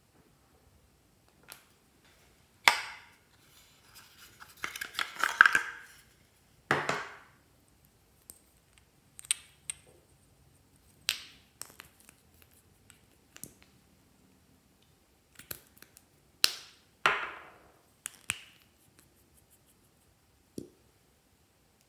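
Hands handling small plastic cosmetic containers, a lip gloss squeeze tube and lip tint bottles with plastic caps, making scattered sharp clicks and taps with quiet gaps between them, and a longer rustle about five seconds in.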